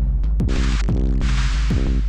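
Electronic background music with a steady drum beat over a held low bass.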